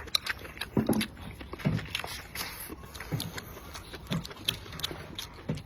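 Close-up chewing and mouth smacks of someone eating stir-fried pig intestines: a run of short, irregular clicks with a few soft low sounds between them.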